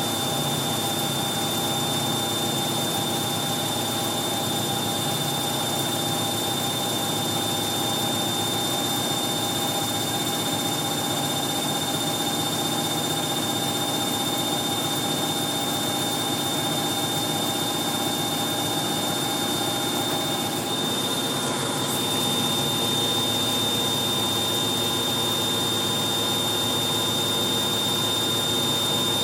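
Hoover 1100 de lux washing machine in its final spin, the drum turning at a steady high speed with a constant motor whine and a high tone over the rumble; it grows slightly louder about three-quarters of the way through.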